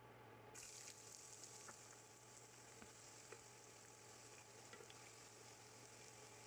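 Small okra pods frying in oil: a faint, steady sizzle with scattered small pops, starting about half a second in.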